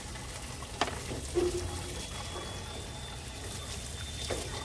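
Diesel pouring out of a fuel tank's open outlet and splashing into a tub below, spattering over hands held at the opening. A faint thin whistle starts about two seconds in.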